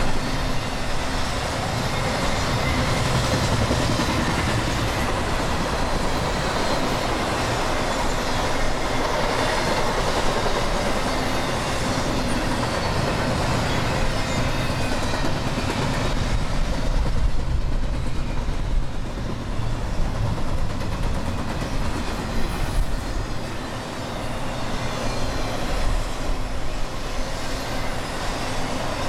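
CSX freight train's cars rolling past, a steady rumble of steel wheels on the rails.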